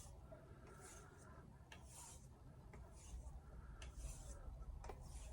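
Faint, soft swishes of a knife blade drawn along a leather strop loaded with 2-micron compound, about one stroke a second.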